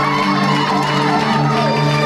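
Music with steady held low notes playing in a hall, with crowd voices and calls rising and falling over it.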